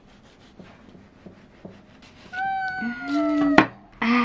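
A large kitchen knife slicing down through a loaf of banana bread with faint crumbly ticks, then a single sharp knock of the blade on the wooden board about three and a half seconds in. Over the slicing, a drawn-out voice sound is held for over a second, falling slightly in pitch, and a shorter breathy one follows near the end; these are the loudest sounds.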